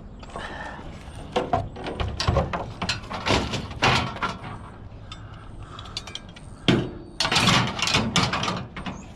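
Scrap junk being handled and pulled apart by hand: irregular clicks, knocks and rattling, with a few louder scraping clatters.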